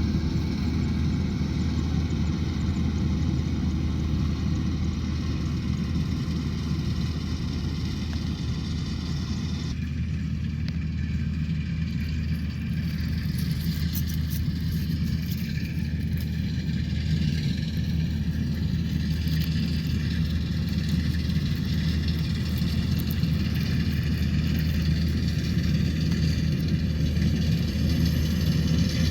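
Rice combine harvester engine running steadily at working speed with a low hum. The sound changes abruptly about ten seconds in.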